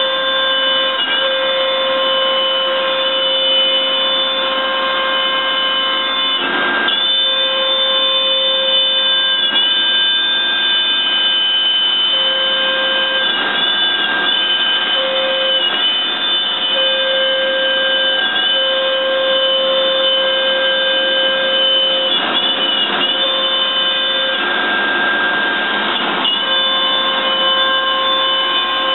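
Electric motor in a woodworking shop whining steadily at a high pitch. The pitch dips briefly every few seconds, as if under passing load, and there are a few short bursts of rushing noise.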